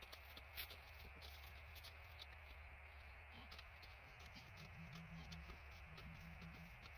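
Near silence: faint background hiss and a low hum, with a few light scattered clicks.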